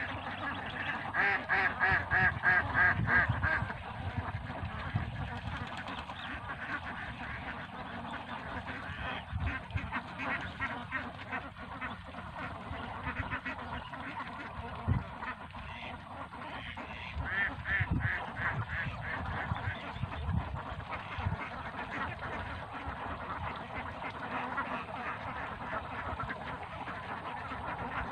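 A large flock of ducks quacking all the time, many calls overlapping into a constant chatter. It is loudest in the first few seconds and again a little past the middle.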